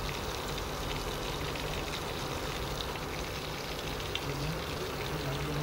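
Fish steaks frying in hot oil in a kadhai, the oil sizzling steadily with many small crackles.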